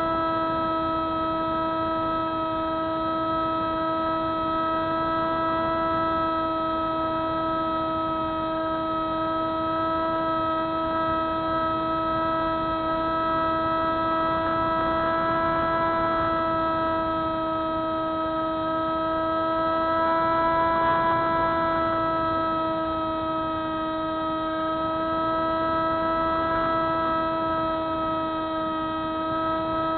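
Electric motor and propeller of a Spyhawk FPV model plane running at steady throttle: one steady droning tone with many harmonics, drifting only slightly in pitch, swelling a little twice.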